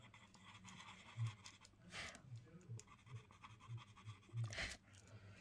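Faint scratching of a pastel pencil shading on pastel mat paper, in short strokes, with a couple of louder strokes about two seconds in and again near four and a half seconds.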